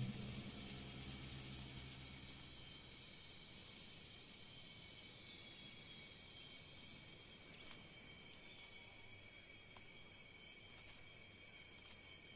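Outdoor insect chorus, crickets trilling: several steady high-pitched tones, one of them pulsing quickly and evenly. A low hum in the first couple of seconds fades away.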